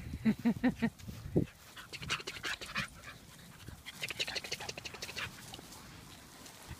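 Small Pekingese dog panting rapidly close by, in two quick spells, after a quick run of short whimpers in the first second and a half.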